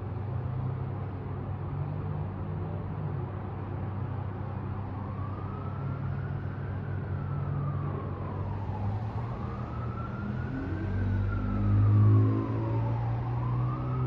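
Steady low rumble of city street traffic. About five seconds in, a distant emergency-vehicle siren starts a slow wail, rising and falling about every four seconds, and a passing vehicle's engine rumble swells about eleven seconds in.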